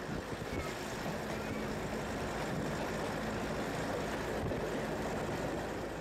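Train running along the track: a steady engine drone over continuous rolling noise.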